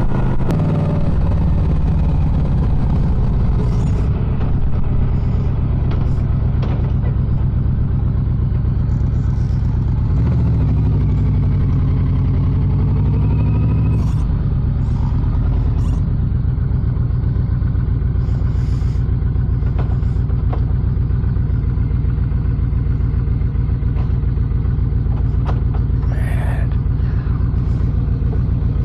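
Motorcycle engine running steadily at highway speed, with road and wind noise, heard from on the bike; the engine note changes about ten seconds in and again near fourteen seconds.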